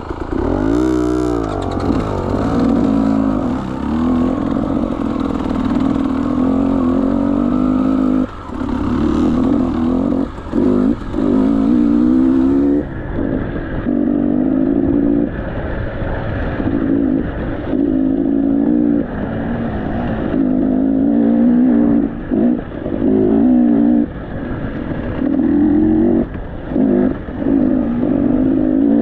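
KTM 300 two-stroke enduro motorcycle engine revving up and down under load, its pitch rising and falling over and over, with many brief cuts as the throttle is shut and snapped open again.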